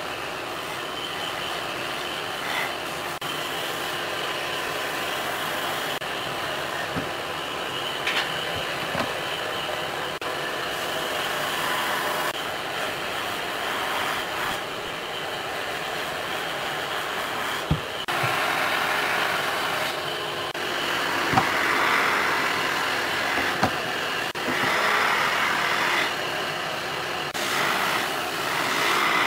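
Steady background noise, like a distant machine or traffic, with a few light knocks spread through it.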